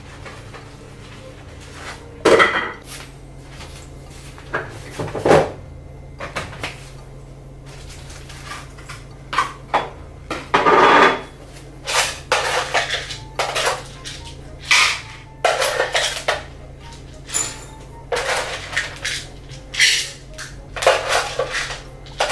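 Dishes and cutlery clinking and clattering in irregular bursts as cat food is dished out into bowls.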